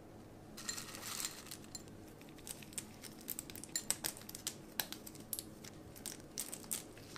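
Crisp chocolate flakes being scattered by hand: a brief rustle about half a second in, then a long run of light, crisp crackles and ticks as the flakes drop and are handled.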